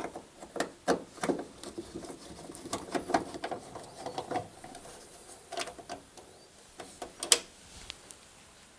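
A screwdriver undoing the screws that hold a tumble dryer's grid cover: a run of irregular small clicks and scrapes, with a sharper click a little after seven seconds in.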